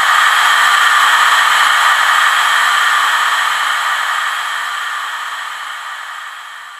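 A loud, steady hiss like static that swells in, holds, then slowly fades away.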